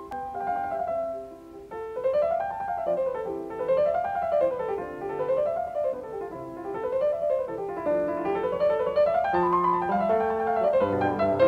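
Background piano music: a few separate notes, then from about two seconds in, flowing arpeggios rising and falling over and over, with lower bass notes joining in the second half.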